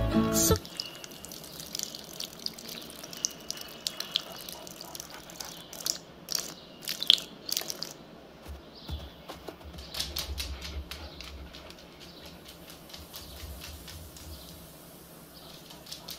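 Soft dripping and trickling with scattered light clicks, from an advert soundtrack played over a hall's speakers: a dog wetting a washable rug. The advert's music stops about half a second in.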